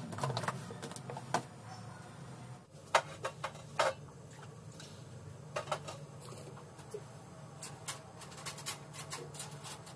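Steel kitchen pots and utensils being handled, clinking and knocking: a couple of sharp knocks about three and four seconds in, then a run of light ticks near the end, over a steady low hum.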